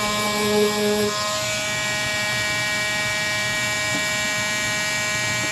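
Power sander motor running steadily with a high whine; a lower hum drops out about a second in.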